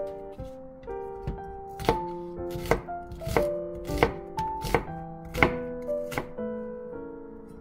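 Chef's knife slicing through an onion and knocking on a cutting board: a steady run of cuts, roughly three every two seconds, tapering off near the end.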